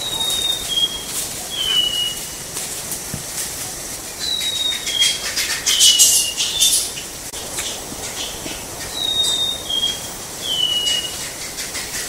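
Chestnut-backed thrush singing: three phrases about four to five seconds apart, each of three short high whistled notes, the last one longer and falling. Scattered crackling clicks and hiss run underneath.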